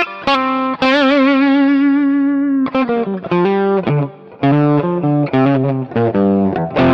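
Electric guitar through a Mooer GE200 multi-effects unit on its rock-and-roll preset with tremolo. A few short notes lead into a long held note with a wavering pitch about a second in, then a rhythmic riff on the low strings.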